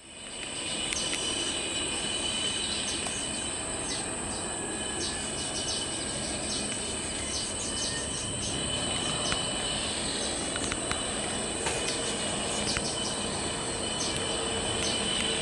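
Steady high-pitched insect drone over a low, even background rumble, with many short high chirps scattered through it.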